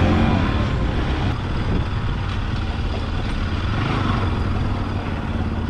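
Motorcycle engine running steadily under way, with wind and road noise over it.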